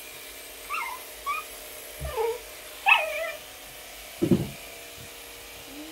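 Corgi puppy giving a series of short, high whines and yelps as it is brushed. About four seconds in there is one louder, deeper sound.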